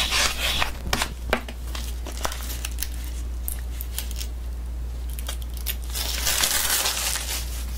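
Clear plastic film from an adhesive applicator being handled and pulled at. There is a run of small crackles in the first couple of seconds, then a longer, denser rustle near the end, over a steady low hum.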